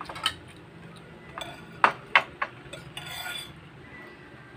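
Metal spoons clinking against ceramic bowls while eating noodle soup: a few sharp clinks, the two loudest a little under two seconds in and just after.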